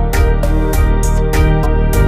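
Background music: an instrumental track with sustained melodic tones over a steady beat.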